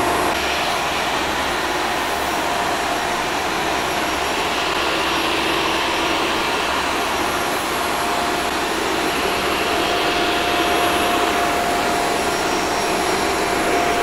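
Shark Stratos upright vacuum cleaner running on its hard-floor setting: a steady rush of motor and airflow with a constant whine in it as it sucks coffee grounds off a tile floor.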